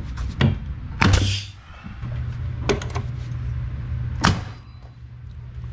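Pneumatic framing nailer firing nails into a 4x4 wood block, several sharp shots each with a burst of air. The two loudest come about a second in and about four seconds in, over a steady low hum.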